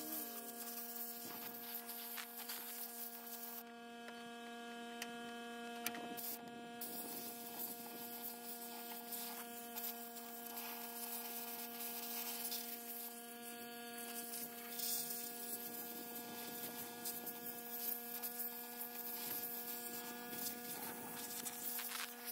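A steady, even hum made of several held tones, one low and a few higher ones above it, with a few faint clicks.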